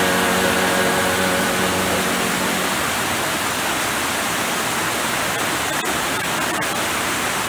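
Steady rush of whitewater cascading over rocks at the head of a waterfall. Held notes of background music are heard over it until about three seconds in.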